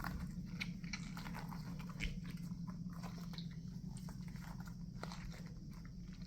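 Small crunchy clicks and crackles from squeezing and handling squishy goo-filled toy figures, over a steady low hum.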